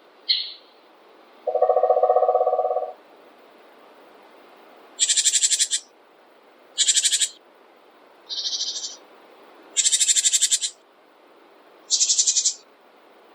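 Wild birds calling: a short high chirp at the start, then a lower, fast-pulsed trill lasting over a second, followed by five short, high, rapid trills spaced a second or two apart.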